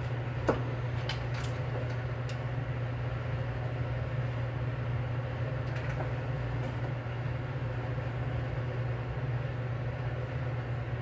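Steady low rumble of a gas stove burner heating a lidded aluminium saucepan, with a few sharp ticks scattered through it, the loudest about half a second in.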